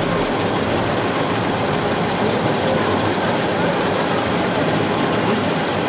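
Steady mechanical running noise mixed with the general din of a busy exhibition hall, even in level with no distinct strikes or rhythm.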